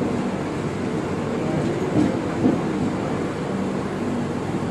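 Passenger train coach heard from inside as it rolls slowly through a station: a steady low rumble, with two brief knocks about two seconds in.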